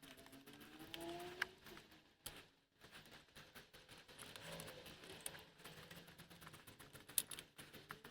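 Faint clicks and clinks of hand tools and metal parts as a starter motor is worked into place in an engine bay, with two sharper clinks, one about a second and a half in and one near the end.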